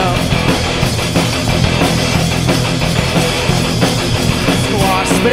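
Live rock band playing an instrumental passage with distorted electric guitar and drums, no singing; the vocal comes back in right at the end.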